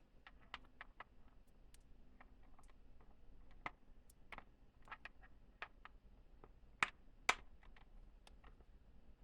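Scattered light clicks and taps of steel impact sockets being handled and taken from their plastic case, with two sharper clicks about seven seconds in.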